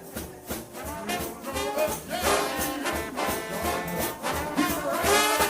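Gospel band music with brass horns carrying the tune over a steady drum beat, growing fuller about two seconds in.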